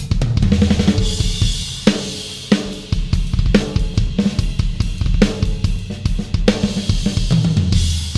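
Yamaha Stage Custom drum kit being played: bass drum, snare, hi-hat and cymbals in a groove, with tom fills near the start and near the end. A cymbal crash about a second in rings out and fades over the next two seconds.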